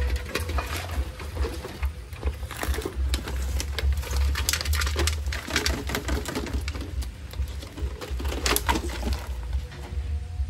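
Small fish and prawns being shaken out of a nylon net and a basket trap into an aluminium bowl: an irregular patter of taps and clicks as they drop and flap against the metal, over a steady low rumble.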